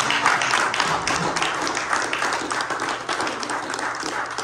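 Audience applauding, a dense patter of many hands clapping that eases off a little toward the end.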